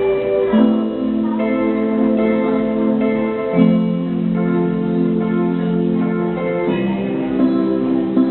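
Instrumental background music, slow and steady, with held chords changing about every three seconds.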